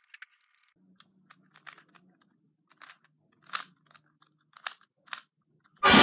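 Plastic Rubik's cube layers being twisted: a quick run of clicking, then scattered single clicks and clacks. Loud music starts abruptly near the end.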